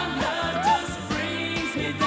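Background pop song with a singing voice over bass and a steady drum beat.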